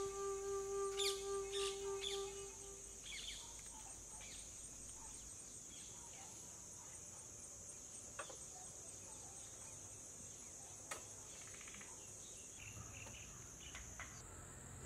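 Steady high-pitched insect chorus with a few bird chirps. A held flute note carries over from the background music and ends about three seconds in. Two faint clicks come later.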